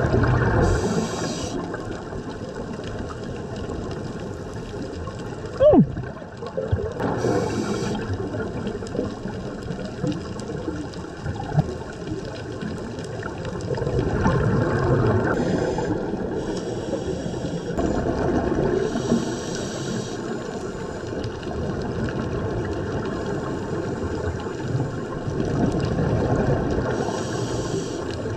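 Underwater sound heard through an action-camera housing: a steady muffled rush of water with bubbling and gurgling. Short hissing bursts every several seconds come from a scuba diver's regulator breathing. About six seconds in there is a brief falling squeak.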